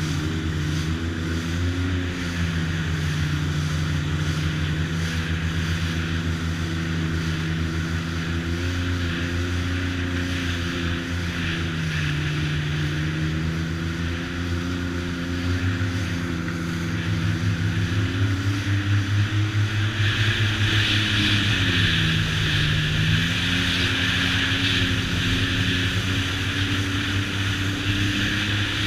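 Sea-Doo jet-drive engine running under way on the water, its pitch rising and falling as the throttle changes, with rushing water and wind noise. The running gets louder and hissier after about eighteen seconds.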